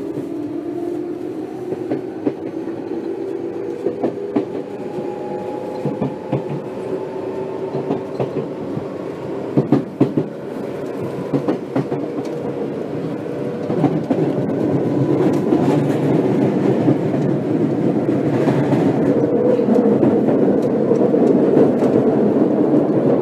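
Tokyu 8500 series train running, its VVVF-inverter traction motors giving a whine of several steady tones that rise slowly in pitch as it gathers speed, with wheels clacking over rail joints. From about halfway through, the running noise grows louder and rougher.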